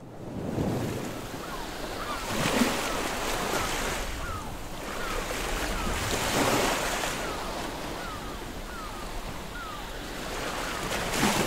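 Sea surf sound effect: waves swelling and washing in every few seconds, with a run of short falling gull cries over them.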